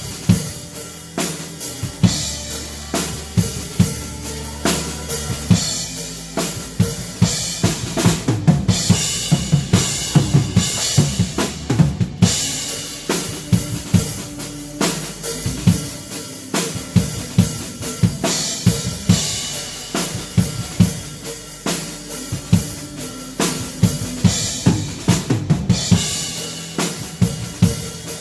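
Drum kit played with a band in an up-tempo worship song: steady kick and snare hits under sustained backing instruments, with cymbals washing brighter about eight seconds in and again near the end.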